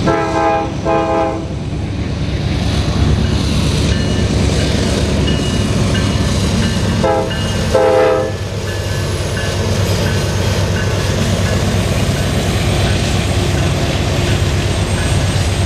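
A Norfolk Southern diesel freight train passes close by, with a steady low rumble of engine and wheels. The locomotive horn sounds two short blasts at the start and two more about seven seconds later, the last one longer. The rumble carries on as the tank cars roll past.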